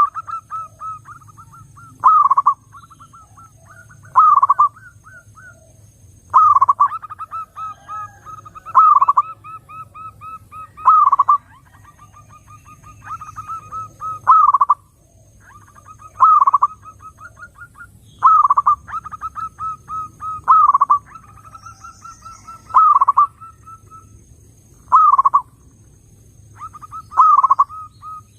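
Zebra dove (perkutut) singing: a loud coo about every two seconds, each followed by a run of quicker, softer staccato notes.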